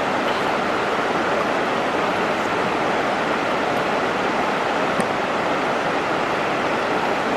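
Fast river water rushing over rapids, a steady churning rush, with one brief click about five seconds in.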